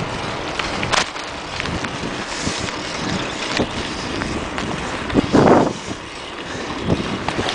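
Wind rushing over the microphone of a camera carried on a moving bicycle, with the bike's rolling and rattling over asphalt. Scattered sharp clicks and knocks, with a louder gust of rush about five and a half seconds in.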